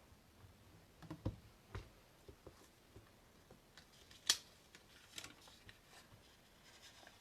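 Stamping tools being handled on a craft table: a few dull taps, a sharp click a little after four seconds, then lighter ticks, as a stamp is inked and stamped onto card in a Stamparatus stamping platform.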